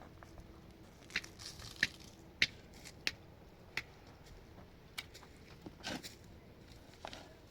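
A series of sharp knocks at uneven intervals, about one every half-second to second, with some crunching between them.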